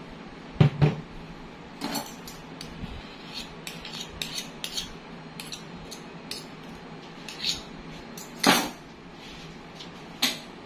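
Metal measuring spoons clinking against a stainless steel mixing bowl: a few sharp clinks about half a second in, about eight and a half seconds in and near the end, with lighter ticks between.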